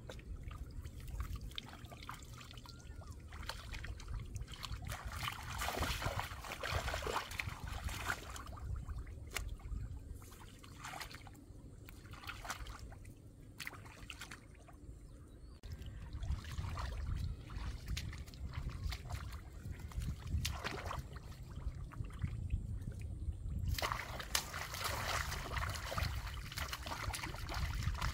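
Shallow muddy water sloshing and splashing in irregular bursts as hands grope through it for fish and feet wade in it, busiest about a quarter of the way in and again near the end.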